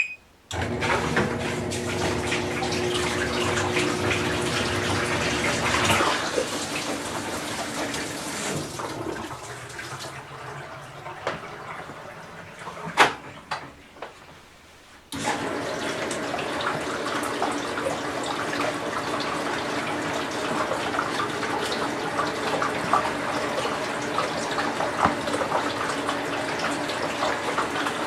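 Whirlpool Cabrio top-load washer taking in water at the start of its wash cycle: a steady rush of water into the tub, with a hum for the first few seconds. About halfway the flow drops off and there is a sharp click, then the water rushes in again.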